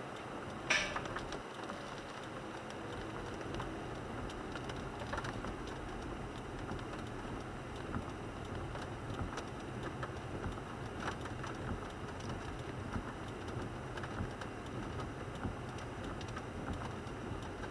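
Rain falling on the windshield and roof of a 1998 Toyota 4Runner, heard from inside the cabin as a steady hiss dotted with small drop ticks over the vehicle's low steady hum, with one sharper click about a second in.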